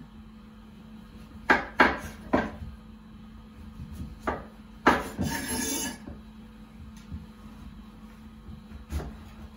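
Kitchen knife cutting a butternut squash on a wooden chopping board: three quick knocks of the blade on the board about a second and a half in, another knock and a hit near five seconds followed by about a second of scraping as the blade works through, and one more knock near the end.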